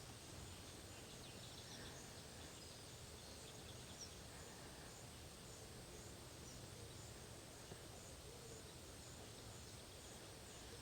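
Near silence: faint woodland ambience with a steady low hiss and a few faint, short bird chirps, one at the start and one about four seconds in.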